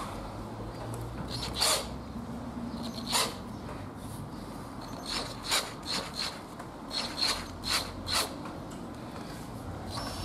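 A series of short scraping, rasping rubs, about nine of them and some in quick pairs, from hand work on a freshly refitted rear drum brake.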